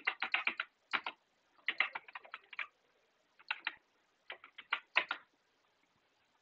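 Typing on a computer keyboard: quick runs of keystrokes in short bursts with pauses between them, stopping about five seconds in.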